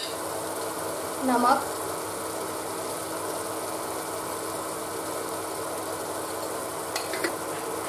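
Tomato and onion masala frying in oil in a kadhai, a steady sizzling and bubbling with a low steady hum underneath. A couple of light clicks come near the end.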